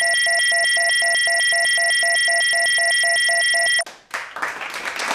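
Steady electronic tone with a fast pulsing beep riding on it, about seven pulses a second, at a constant level; it cuts off abruptly nearly four seconds in. A run of rough wiping strokes follows, a whiteboard being erased.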